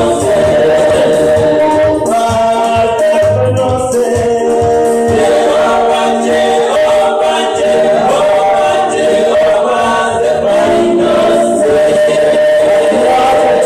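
Live gospel praise and worship singing: a male lead and female backing singers with keyboard and band accompaniment, held notes and sustained melody throughout.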